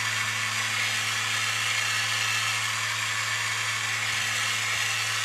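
Enamelling torch flame burning steadily under a steel mesh trivet, a continuous hiss over a low hum, drying the wet-packed cloisonné enamel before it is fired.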